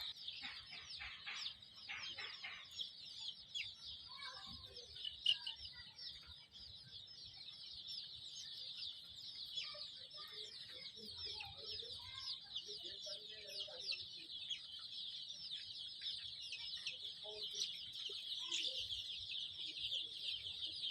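A large flock of Kadaknath chicks peeping without pause: many high, thin peeps overlapping into a continuous chatter, with a few lower, scattered calls among them.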